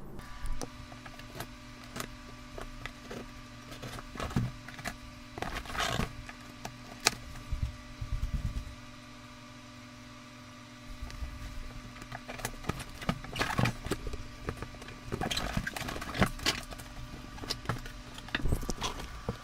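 Packaging of an RC rock crawler's box being opened and handled: irregular knocks, clicks and rattles, with a quieter pause about halfway through. A faint steady hum runs underneath.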